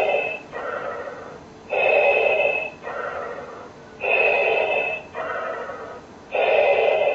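Darth Vader-style respirator breathing from a Vader helmet: a loud hissing in-breath followed by a softer out-breath, repeating about every two and a quarter seconds, three full breaths in all.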